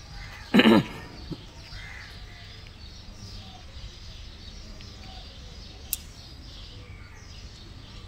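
One short, harsh vocal sound about half a second in, over a faint steady outdoor background; a single sharp click near six seconds.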